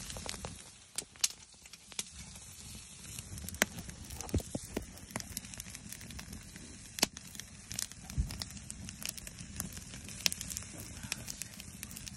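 Wood fire in a fire pit under a grill grate crackling, with irregular sharp pops scattered throughout and a low bump about eight seconds in.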